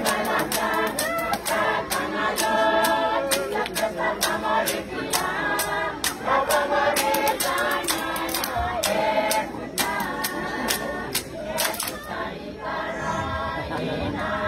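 A marching band's group of voices singing together in harmony over sharp percussion beats, about three a second. The beats drop out around twelve seconds in while the singing carries on.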